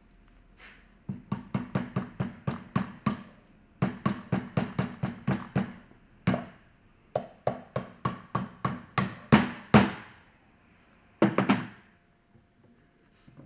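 Soft-faced mallet striking the end of a centrifugal pump shaft, driving the shaft and its bearing home into the bearing cover. The blows come in quick runs of about four or five a second: three long runs, a single blow, and a short run near the end.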